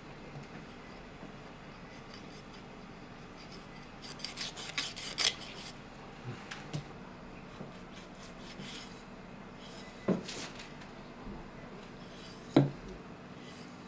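Kitchen knife scraping and cutting through the rough skin of a devil fish, a run of rasping strokes about four seconds in, then two sharp knocks near the end.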